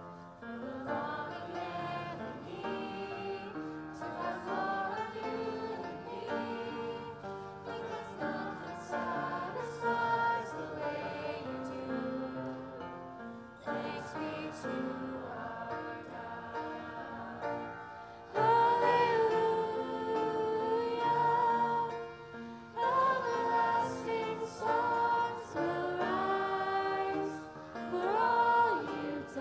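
Mixed student choir singing a slow song with upright piano accompaniment; the singing gets louder about eighteen seconds in.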